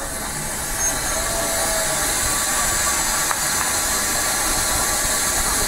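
Double-deck electric commuter train at the platform, giving off a steady, loud hiss, with a single short click about three seconds in.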